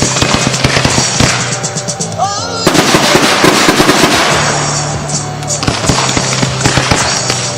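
Consumer fireworks going off in quick succession, a dense run of pops and crackles that grows thicker about three seconds in, over a loud rock song.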